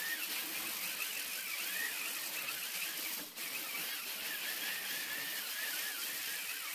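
Corded angle grinder with a 40-grit sanding disc sanding body filler on a steel cargo door, running steadily with a high whine that wavers in pitch. The sound dips briefly about three seconds in.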